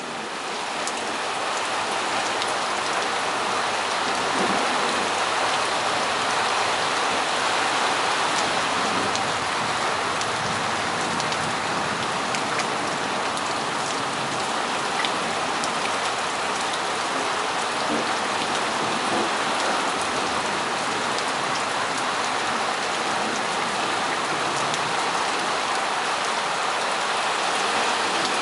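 Heavy thunderstorm rain pouring steadily, swelling over the first couple of seconds and then holding even.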